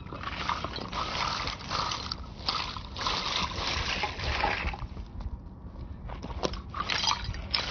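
Loose debris and dirt being scraped and swept up, in uneven rustling strokes with two short pauses.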